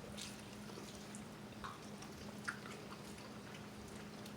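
Faint eating sounds at the table: a few small mouth clicks and smacks, over a steady low hum.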